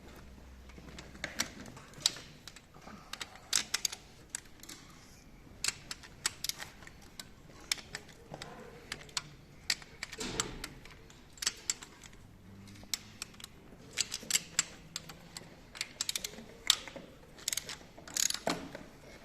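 Irregular sharp clicks and clinks of tools and small metal engine parts being handled during the disassembly of a Nissan VQ35DE engine, sometimes several in quick succession.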